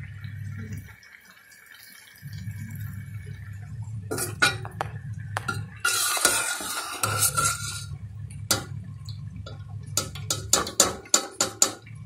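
A metal spoon clinking and scraping in a cooking pan, with a quick run of sharp clinks near the end. A hissing rush about halfway through sits over a steady low hum.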